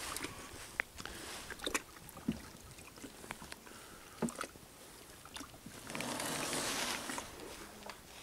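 Kayak paddling: paddle blades dipping and splashing, with water dripping and lapping against the kayak hull. A scatter of short clicks and splashes runs throughout, and there is a louder rush about six seconds in.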